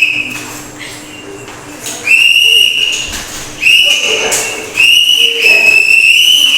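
A whistle blown in three long, steady high-pitched blasts, starting about two seconds in; the last blast is the longest, nearly two seconds.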